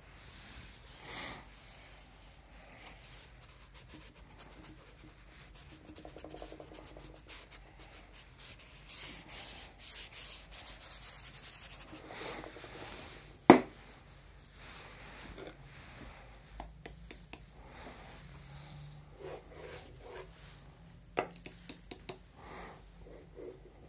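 Paintbrush rubbing and scrubbing across sketchbook paper as an ink wash is laid on, with one sharp knock a little past halfway and a few lighter clicks near the end.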